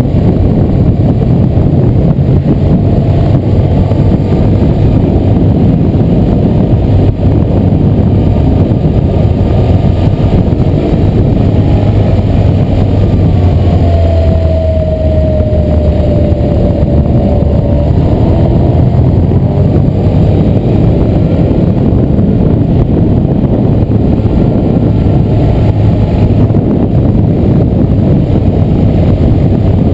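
Motorcycle engine running at steady cruising speed, with heavy wind rush on the bike-mounted microphone. About halfway through, a faint tone slides down in pitch.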